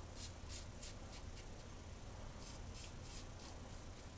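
Injector safety razor with a Personna 74 blade scraping through lathered stubble in short, quick buffing strokes, about three a second, with a short pause midway. The sound is faint.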